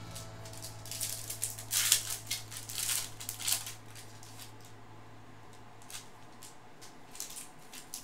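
Foil wrapper of a baseball card pack crinkling and tearing open in several short bursts, with cards being handled, over a low steady hum that stops about six seconds in.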